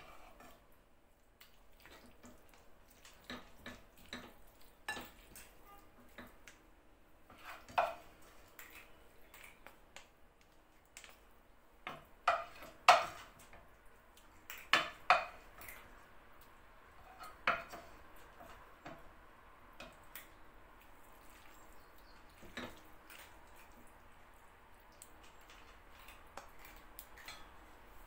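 Serving utensils knocking and scraping against a frying pan and a ceramic plate while spaghetti is dished out: scattered clinks and knocks, some briefly ringing, most frequent around the middle.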